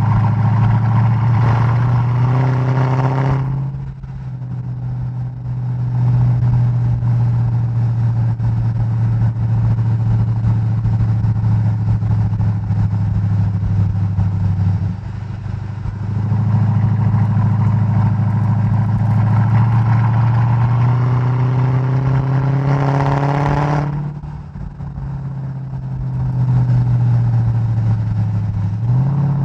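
Mercedes-Benz E55 AMG's supercharged V8, heard through an exterior microphone while driving, running at a steady cruising note. Twice, near the start and about three-quarters of the way through, the revs climb and then drop off sharply as the throttle closes.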